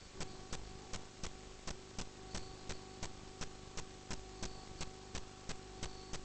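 Sewer inspection camera equipment running: a steady electrical hum with sharp ticking, about three clicks a second.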